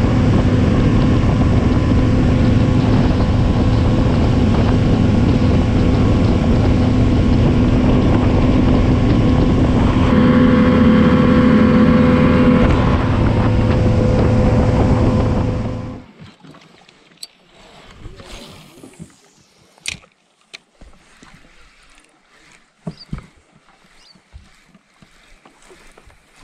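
Boat's motor running steadily at speed, a loud, even drone with a low hum, which cuts off abruptly about sixteen seconds in. A few light knocks and clicks follow in the quiet.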